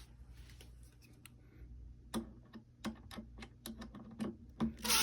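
Light, irregular clicks of screws and a screwdriver being worked while fastening a part back into an amplifier cabinet. The clicks come sparsely at first, then several a second from about two seconds in.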